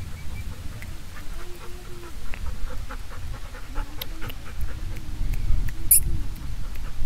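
A golden retriever close by, making faint whining sounds over a steady low rumble, with small ticks and one sharp click about six seconds in.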